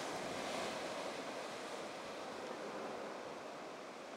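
Ocean surf breaking and washing over a lava-rock shoreline: a steady rushing hiss that slowly fades.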